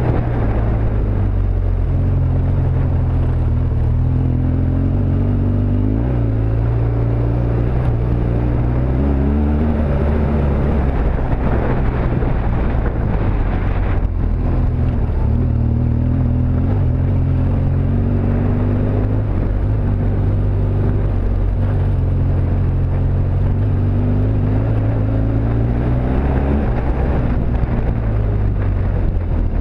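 BMW R1200GSA's boxer-twin engine running on a gravel road, its pitch dropping and rising several times as the throttle is closed and opened. A steady hiss of tyre and wind noise runs underneath.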